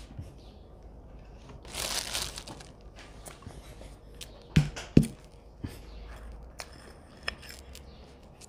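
Eating and handling noises at a table: a short crinkling rustle about two seconds in. Around the middle come two sharp knocks half a second apart as a spoon works in a bowl of ice cream, then light spoon clicks.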